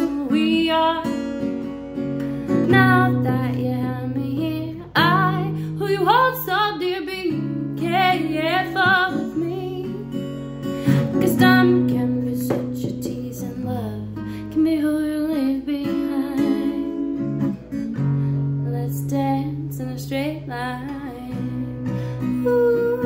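Acoustic guitar strummed in steady chords while a woman sings over it.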